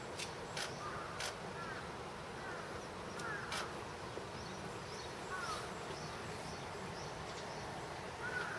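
Cheetah cubs chirping: short, high, bird-like chirps that come every second or two, some in quick pairs, over a steady hiss with a few sharp clicks.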